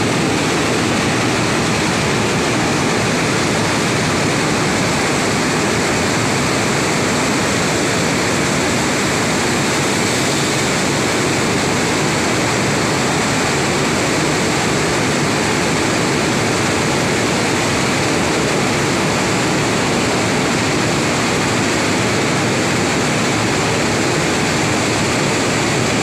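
Wheat flour mill machinery (roller mills, sifters and pneumatic fans) running on a trial run, a loud steady roar that does not change. The rolls of the first roller mill have not yet been engaged.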